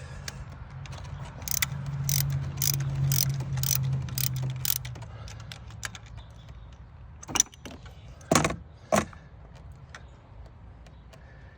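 Socket ratchet clicking in a steady rhythm, about two clicks a second, as a still-tight spark plug is worked loose with a 5/8 spark plug socket. Three sharp metal knocks follow near the end, the loudest about eight seconds in.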